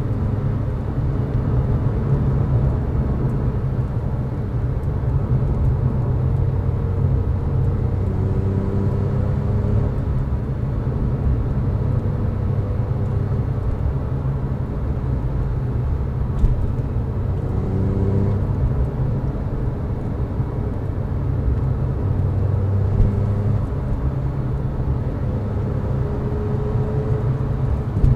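Engine drone and tyre rumble inside a Porsche 911's cabin at steady highway cruise, the engine note drifting slightly up and down.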